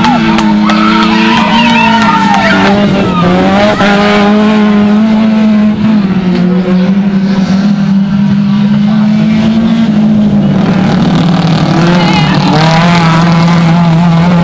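Small race cars' engines running hard at high revs on a dirt autocross track, one loud held engine note that drops in pitch a few times, as at gear changes or lifts.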